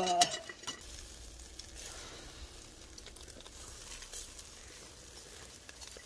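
Soy-marinated pork sizzling on a wire grill basket over oak charcoal: a steady faint hiss with a few light ticks.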